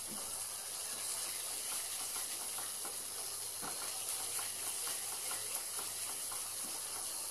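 Ground onion paste sizzling steadily as it fries in butter and oil in a stainless steel pan, stirred with a silicone spatula that adds small scattered ticks and scrapes. The onion is being fried until it starts to colour, before any spices go in.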